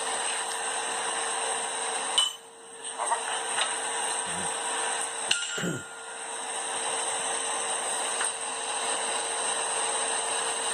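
Two sharp metal-on-metal clinks with a brief ring, about two seconds in and again about five seconds in, from blacksmith's tongs and ironwork being handled, over a steady hissing noise.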